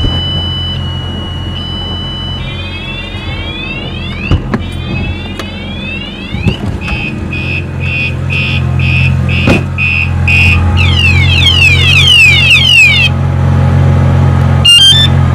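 A wsdcam 113 dB vibration-sensing bike alarm sounding, set off by the movement of the car it is fixed to. Its siren cycles through patterns: a steady high tone, then rising-and-falling sweeps, then rapid beeps about three a second, then fast rising whoops, breaking off with a short warble near the end. A car engine runs underneath, a little louder from about halfway through.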